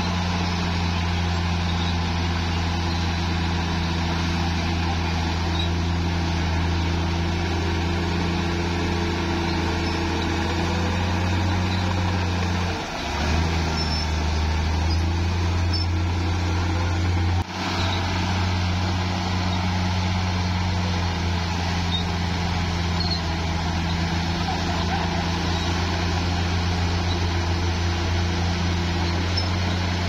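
A bulldozer's diesel engine running steadily. Its pitch dips briefly about thirteen seconds in, and the sound drops out for an instant a few seconds later.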